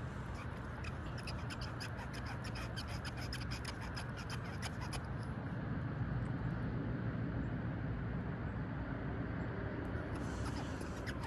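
Handling noise close to the microphone: light scratching and a run of small clicks over a low steady rumble. The clicks thin out about halfway through and pick up again near the end.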